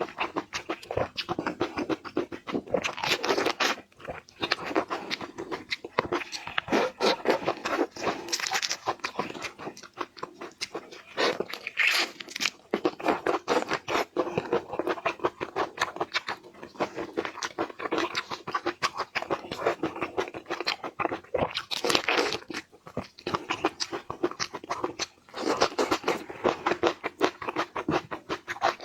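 Close-miked seafood eating: a dense run of crunching, chewing and wet clicking mouth sounds, with brief pauses about four seconds in and near the end.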